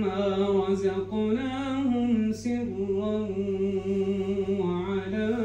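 A man reciting the Quran unaccompanied in a melodic tajweed style, with long drawn-out notes and wavering ornaments. There is a short break for breath a little over two seconds in.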